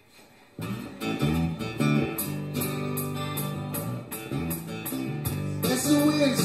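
A small live band starts a song about half a second in: strummed acoustic guitars over a bass line, with light regular percussion strokes, an instrumental intro.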